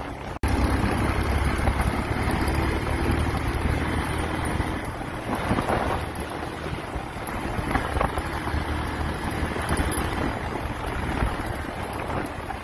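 Big motorcycle running along a rough dirt track, its engine rumble mixed with heavy wind buffeting on the microphone. The sound cuts out for a moment about half a second in.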